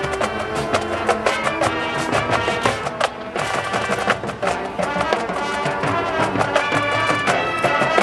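A college marching band playing live on the field: brass and woodwinds holding full chords over a drumline beating a steady rhythm.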